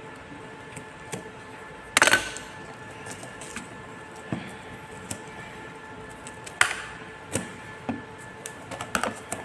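Plastic clicks and knocks from handling a small phone umbrella and its clamp on a selfie-stick tripod while it is being fitted and adjusted. The loudest rattle of clicks comes about two seconds in, with single sharper clicks later, over a faint steady hum.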